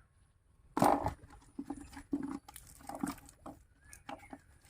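A fishing net being hauled in with live fish in it: irregular wet slaps, knocks and rustles. The loudest hit comes about a second in.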